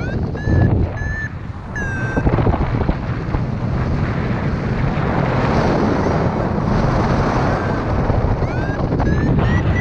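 Wind rushing over the microphone of a paraglider pilot in flight, a steady rumble. Short, high electronic beeps from the flight variometer sound a few times near the start and again near the end, some of them rising in pitch.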